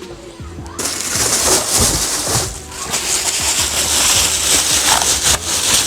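Loud rustling and crinkling of packaging as a home-theater satellite speaker is unpacked, starting about a second in, over steady background music.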